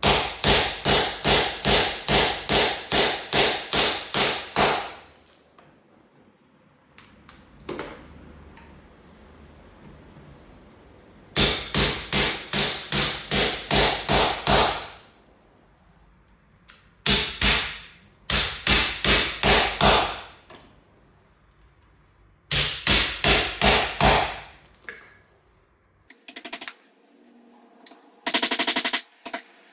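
Hammer blows on a chisel, chopping out a recess in a wall for a socket back box. The blows come in quick even runs of about two and a half a second, five runs with short pauses between them.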